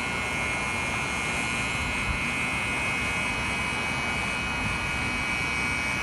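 Steady vehicle engine noise with a constant high whine, unchanging throughout.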